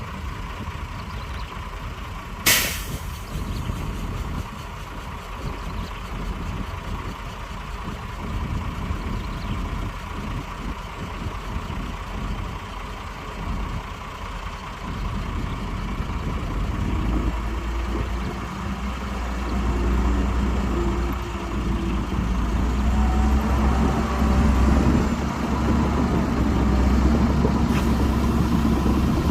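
Heavy diesel truck engine running, with one short, sharp air-brake hiss about two and a half seconds in. From about seventeen seconds on the engine grows louder, settling into a steady low drone.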